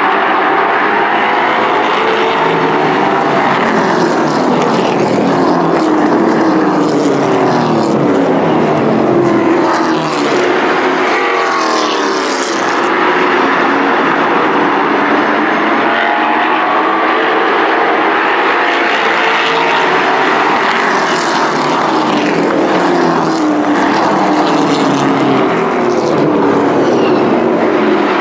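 Several race trucks' engines running hard in a pack around an oval track. Their pitch rises and falls again and again as the trucks accelerate and lift through the turns, with several engine notes overlapping at once.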